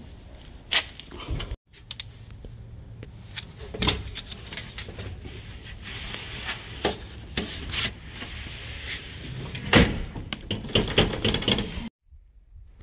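Clatter of hand-tool work and handling in a garage: a run of sharp clicks and knocks, with one loud clunk about ten seconds in. The sound cuts out for a moment after about a second and a half, and drops to a much quieter background near the end.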